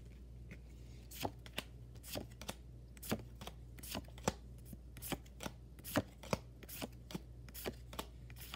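Pokémon trading cards being flipped one at a time from the front to the back of a hand-held pack: a string of light, irregular card snaps and slides, two or three a second.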